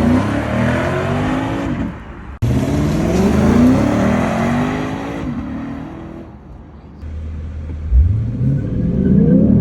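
Lexus IS 500's 5.0-litre V8 accelerating hard, its note climbing in several rising sweeps as it pulls through the gears. The sound breaks off sharply about two and a half seconds in, picks up again, and fades away around six seconds in; near the end another hard acceleration starts, climbing again.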